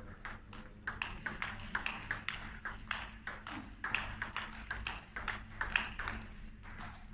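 Table tennis rally: the ball clicking sharply off the bats and the table in quick succession, several knocks a second.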